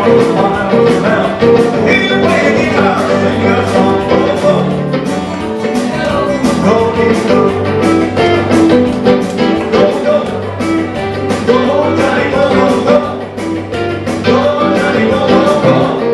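Live rock and roll played on an electric guitar through an amplifier, with a steady beat.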